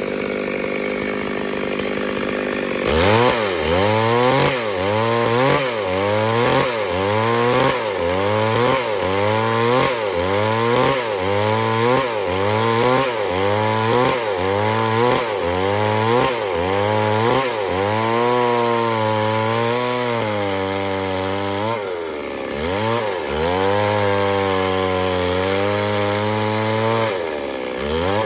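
Chainsaw cutting wood. After about three seconds of steady running, the engine note dips and recovers again and again, a little more than once a second, as the chain is worked into the wood under load. In the latter part it holds a steadier high note, with two deeper drops near the end.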